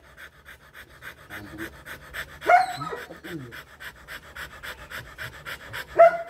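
A male Rottweiler panting rapidly, about five pants a second, while tied with a female during mating. A dog gives a short cry about two and a half seconds in and again near the end.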